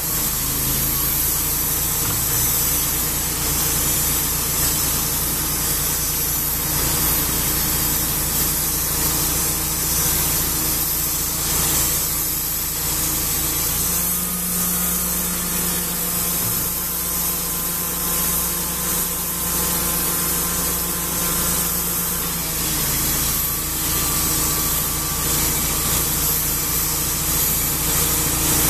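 Engine of a Wood-Mizer band resaw running steadily while it saws poplar boards into lapboard siding. The engine note steps up a little about halfway through and drops back some eight seconds later as the cutting load changes.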